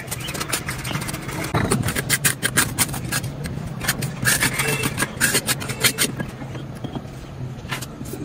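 A quick, irregular series of sharp scrapes and taps over a steady low machine hum; the scraping thins out after about six seconds.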